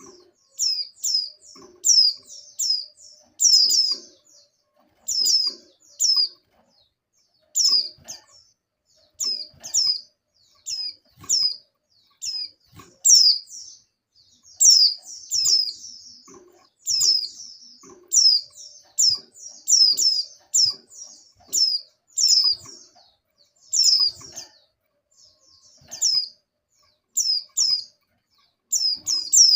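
Female white-eye (pleci) giving its contact call: short, high, downward-sliding chirps in quick clusters of two to four, repeated about every second. This is the call of a female in breeding condition that is used to draw males.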